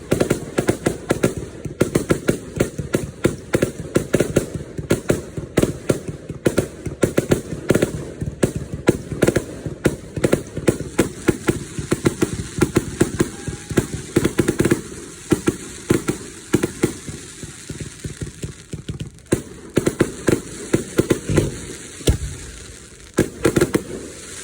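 Fireworks going off in rapid succession: a dense run of sharp bangs and crackling pops, several a second, thinning out a little after the middle.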